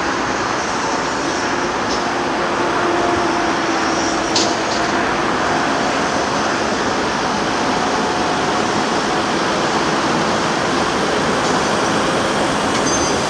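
Steady noise of motorway traffic mixed with running diesel engines of heavy earthmoving machinery, with one brief click about four seconds in.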